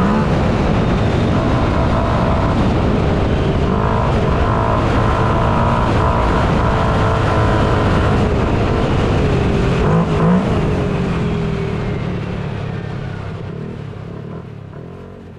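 Engines of small off-road race cars running hard and revving, pitch rising and falling. The sound fades away over the last few seconds.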